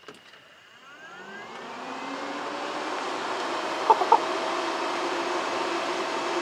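A 12-volt electric fan of the automotive radiator-fan type is switched on. It spins up over about two seconds with a rising whine and then runs steadily with a loud whir. Two short knocks come about four seconds in.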